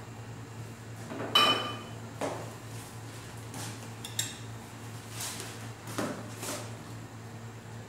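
Metal cookware clanks once with a short ring about a second in, followed by several lighter knocks of a ladle against an aluminium cooking pot as it is stirred, over a steady low hum.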